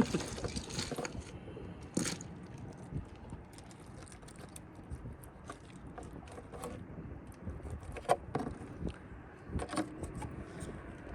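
Scattered clicks, taps and scrapes from hands and a knife working on freshly cleaned snapper fillets, with a short rustle at the start and single sharper knocks about 2, 8 and 10 seconds in.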